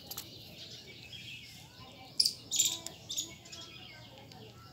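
High-pitched chirping calls in short quick bursts, loudest about two seconds in, with a few fainter chirps after.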